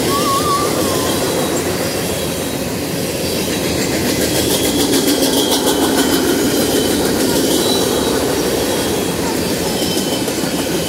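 Freight train of boxcars and open-top gondolas rolling past: a steady rumble and clatter of steel wheels on the rails, with a stretch of rapid clicking around the middle and faint, thin wheel squeals.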